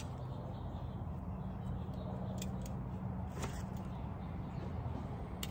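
Faint crinkling and a few light clicks of plastic packaging being pulled open around a small part, over a steady low background hum.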